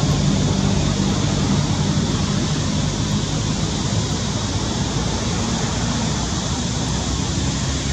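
Steady rushing background noise with a low hum underneath, easing slightly over the first few seconds.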